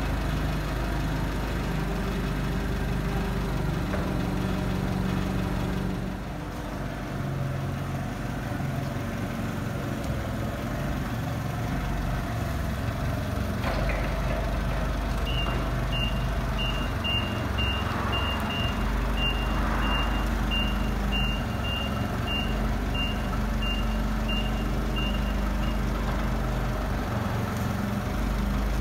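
Propane-fuelled Nissan forklift's engine running steadily. About halfway through, its reversing alarm beeps about twice a second for some ten seconds while it backs up.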